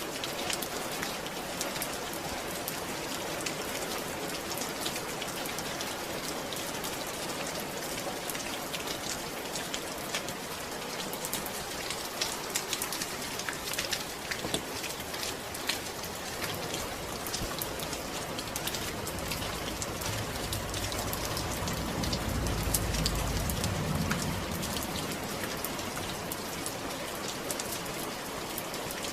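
Steady rainfall with many individual drops ticking. A low rumble swells in about twenty seconds in and fades out a few seconds later.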